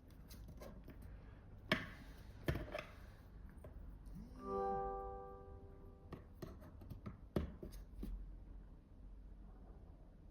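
Several sharp clicks and knocks as a magnetic USB-C charging cable and its tip are handled and plugged in. About four seconds in comes a short electronic chime from an Android device, held for about a second and a half, the kind of tone a device plays when it starts charging.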